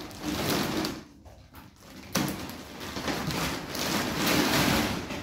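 Rustling and crinkling of a bag being rummaged through as an item is pulled out, in two stretches with a lull about a second in; the second stretch starts suddenly.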